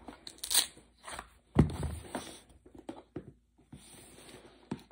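Mystery Tackle Box cardboard box being torn open by hand: scattered tearing, crunching and crinkling of cardboard and tape, with a louder thump about a second and a half in.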